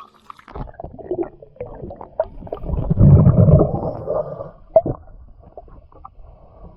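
Underwater sound of a scuba diver's regulator exhaust: a loud bubbling, rumbling exhale starting about two and a half seconds in and lasting about a second and a half, with small knocks and clicks around it.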